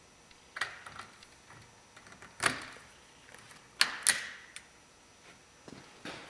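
Sharp plastic clicks and knocks of T12 LED tubes being handled and pushed into a shop light fixture's lamp sockets: several separate knocks, the loudest about two and a half and four seconds in.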